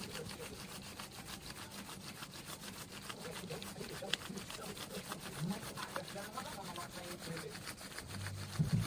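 Stationary exercise bike being pedalled, its flywheel giving a fast, even, rhythmic rubbing swish.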